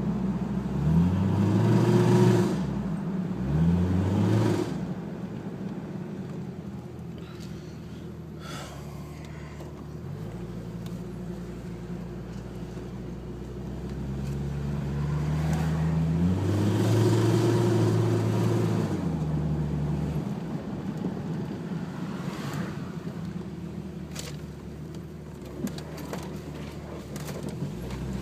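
1996 Jeep Cherokee's 4.0 L straight-six running, blipped twice quickly near the start, then idling, then revved up and held for several seconds about halfway through before dropping back to idle. The engine has a misfire at idle, logged as a cylinder 5 misfire (code P0305) with the mixture reading lean.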